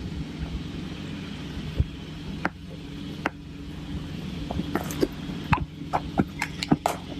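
Steady low hum with scattered sharp clicks and clinks, coming thick and fast over the last two and a half seconds.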